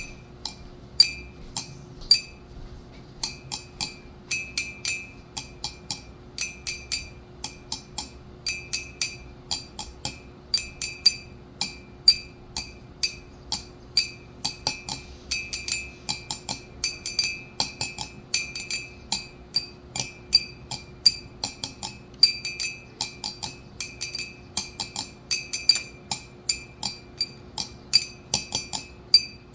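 Glass being clinked over and over: sharp clinks a few times a second in an uneven rhythm, each ringing briefly at the same bright pitch, over a faint steady hum.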